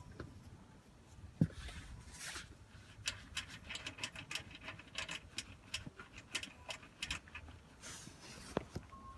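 Irregular light metallic clicks and taps of hand tools and parts being worked, two or three a second through the middle, with a dull thump early on and a sharper knock near the end.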